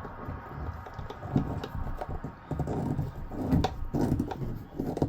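Scattered small clicks and knocks of hands and a screwdriver working on an RV toilet's plastic water valve and its screws.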